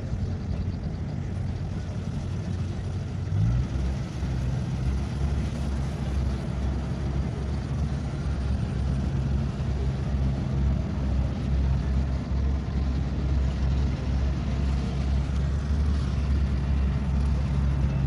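Kubota DC-70X combine harvester's diesel engine running steadily under work. About three and a half seconds in, its pitch steps up and it gets louder, then it holds steady.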